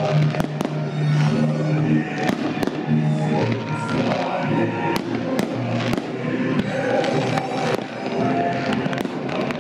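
Fireworks display: shells bursting in repeated sharp bangs at irregular intervals, over continuous music.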